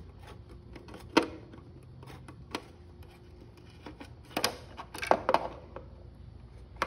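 Sharp clicks and taps of a screwdriver and hands against the plastic motor shell and circuit board of a Genie garage door opener, while board screws are being removed. Single clicks come about a second in and again a little later, then a quick cluster of taps over the last few seconds.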